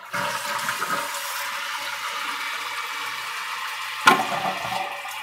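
Vortens Vienna toilet flushing: water rushing steadily from the tank through a newly fitted flapper into the bowl, with one sharp knock about four seconds in.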